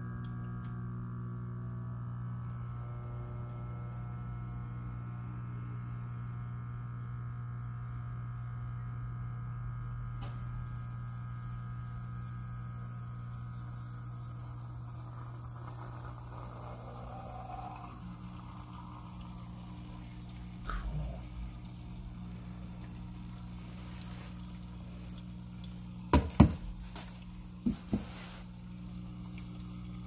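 Water poured from a bottle splashing into a pet water fountain's bowl over the steady hum of the fountain's small electric pump. One knock past the middle, then a few louder sharp knocks near the end.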